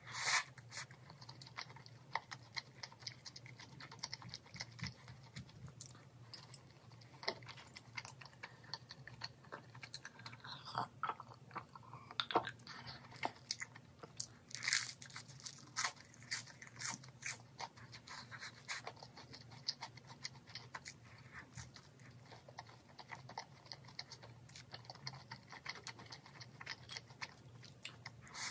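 Close-up chewing and crunching of crispy fried chicken, a run of crackling crunches with louder bites just after the start and twice about halfway through.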